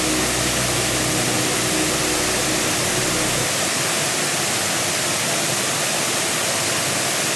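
Waterfall rushing: a steady, loud hiss of falling water with no let-up.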